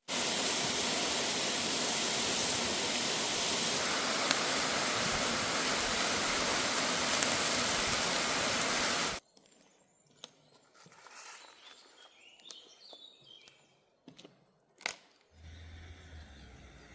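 Steady, loud rushing of a waterfall that cuts off abruptly about nine seconds in. It is followed by a much quieter stretch with scattered faint clicks, one sharp click, and a low hum that comes in near the end.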